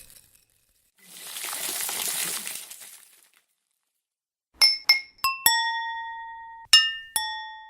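A short hissing burst of noise, then, after a pause, six bright clinking strikes at different pitches. The later strikes ring on for about a second each.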